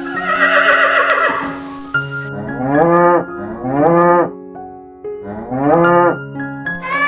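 A bleating call fades at the start, then a cow moos three times, each call rising in pitch, over background music.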